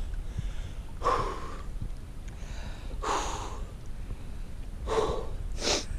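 A man breathing hard in about five loud gasps and exhales, his reaction to the shock of freezing lake water.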